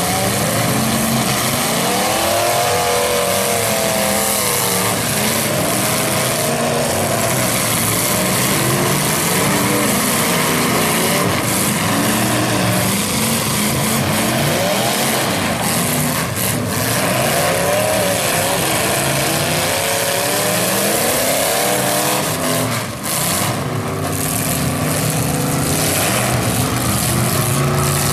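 Several demolition derby stock cars' engines revving hard and overlapping, their pitch sweeping up and down again and again as the cars push and ram each other, over a dense wash of noise.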